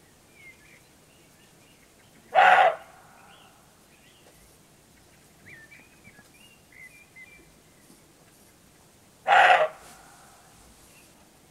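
Roebuck giving two loud, short barks about seven seconds apart, the territorial barking with which roe bucks challenge each other. Faint bird chirps sound between the barks.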